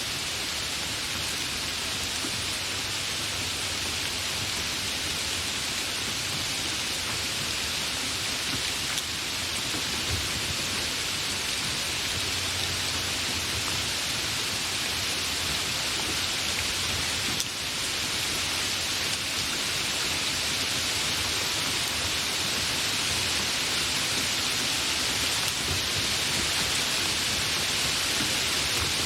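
Steady, fairly intense rain falling, an even continuous hiss with no thunder.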